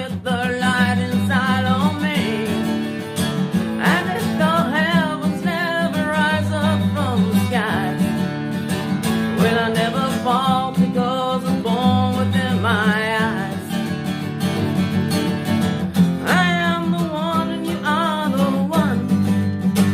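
Acoustic guitar music: a strummed guitar with a steady bass under a wavering, bending melody line.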